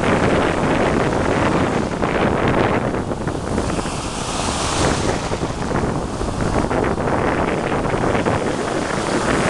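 Ocean surf breaking and washing around, with wind buffeting the microphone as a low rumble. The hiss of a breaking wave swells about four seconds in.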